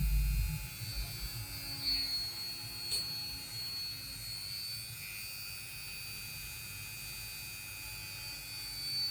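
A steady electrical hum with a faint high whine, heavier low rumble in the first half second and a faint click about three seconds in.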